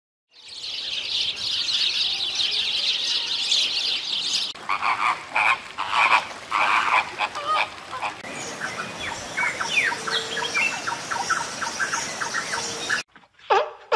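Animal calls in the wild: a dense, high chorus for about four seconds, then separate repeated calls, then a run of many short, rising chirps until it cuts off shortly before the end.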